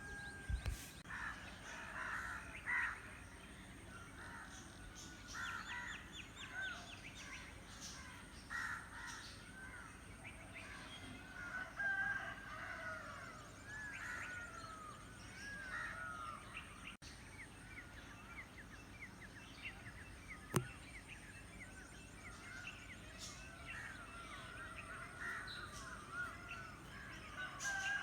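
Morning bird chorus: many birds chirping and calling over one another, steadily throughout, with one sharp click about twenty seconds in.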